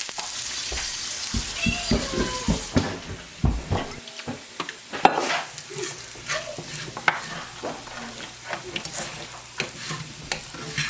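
Beans and rice sizzling in a pan while a utensil stirs and scrapes through them, with scattered knocks and clinks against the pan. The sizzle is strongest in the first few seconds and eases off after that.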